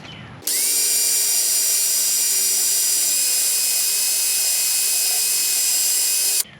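A small high-speed power tool running steadily with a high-pitched whine, spinning up about half a second in and cutting off abruptly near the end.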